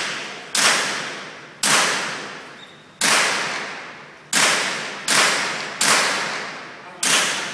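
Seven shots from an AR-style rifle fired at an uneven pace, roughly one a second, each ringing out in a long echo in the enclosed indoor range.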